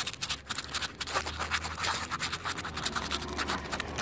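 Sandpaper rubbed by hand over the painted steel frame tube of a GY6 scooter in quick back-and-forth strokes, sanding off rust before touch-up paint.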